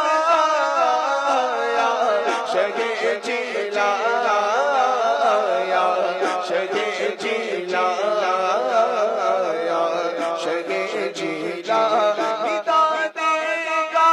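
Male voice singing a devotional Urdu manqabat without instruments, in a chant-like style.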